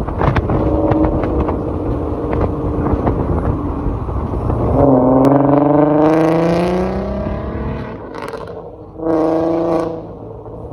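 VW Golf Mk4 R32's 3.2-litre VR6 engine and exhaust being revved: a steady engine note at first, then a rev that climbs in pitch for about three seconds from five seconds in, and a second short burst of revs about nine seconds in.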